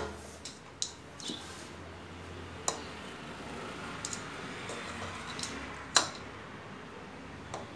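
Scattered light taps and clicks as a cat bats a small ball hanging on a string, the sharpest about six seconds in, over a faint low hum.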